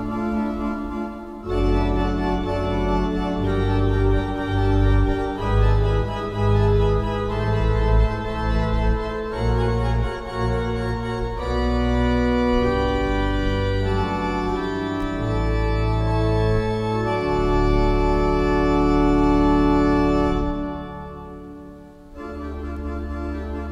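1913 Heinrich Schiffner pipe organ playing a D minor improvisation: sustained chords over a strong pedal bass, changing every second or so. A long held chord fades out about 21 seconds in, and a quieter chord then begins.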